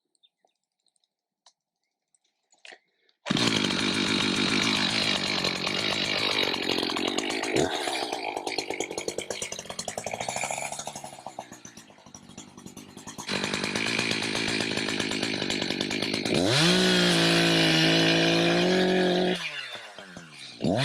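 Echo gas chainsaw cutting cedar. It comes in suddenly about three seconds in after near silence, and its pitch sags and recovers as the chain bogs in the wood. Near the end it holds at high revs, drops briefly toward idle, then revs up again.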